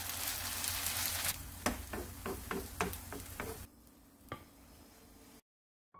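Shredded cabbage, carrot and egg mixture sizzling in hot oil in a frying pan, with a run of about seven light taps starting about a second and a half in. The sizzle drops away about two-thirds of the way through, leaving a faint hiss and one more tap, then a brief silence.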